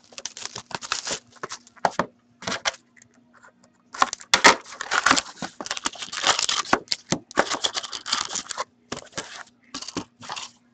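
Plastic shrink wrap being torn and crinkled off a sealed box of hockey cards, then the cardboard box opened and its inner packaging pulled out, in irregular bursts of rustling and crackling, busiest in the middle.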